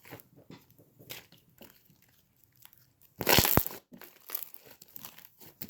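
Close handling noise: scattered small crackles and clicks, with a louder rustle and two sharp knocks about three seconds in.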